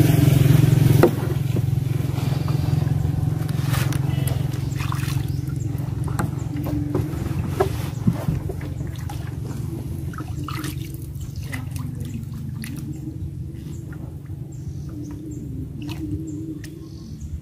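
A wooden stake splashing and knocking as it is worked down through river water into the mud bottom, in scattered short strokes. Under it runs a steady low motor drone that slowly fades.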